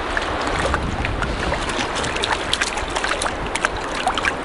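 A hooked fish splashing and thrashing at the water's surface as it is reeled in to the bank, many short splashes over a steady rushing background.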